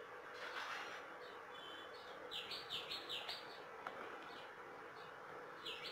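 A small bird chirping faintly in quick runs of high notes, about five in a row around two and a half seconds in and again near the end. A single faint click, a metal spoon touching the plastic pickle tub, comes about four seconds in.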